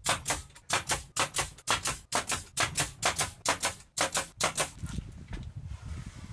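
Nail gun firing in quick succession, about two to three shots a second, driving 1-5/8-inch nails through a poplar face frame into a cabinet. The shots stop a little over four and a half seconds in.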